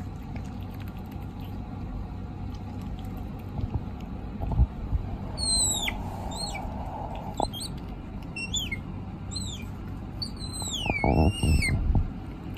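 A small animal giving a run of short, high-pitched squeaks that fall in pitch, several in quick succession, with a few low knocks among them.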